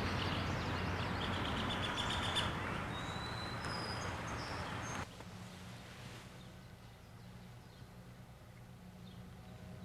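Outdoor ambience with birds chirping over a steady background noise. About halfway through it cuts off abruptly to a quieter background with a steady low hum.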